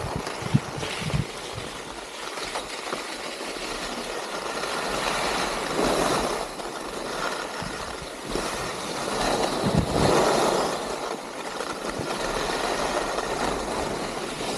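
Skis sliding and scraping over packed snow with wind rushing past, a steady hiss that swells twice, about six and ten seconds in.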